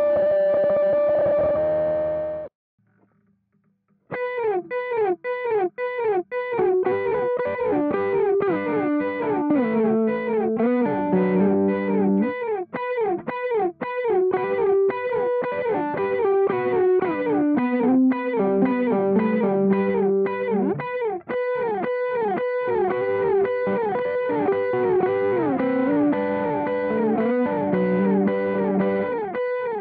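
Electric guitar, a Fender Telecaster Deluxe, played through a Zoom G5n multi-effects pedal. A held chord cuts off sharply about two seconds in, and after a short gap a new effect patch starts: quickly repeated, evenly chopped notes moving in melodic lines.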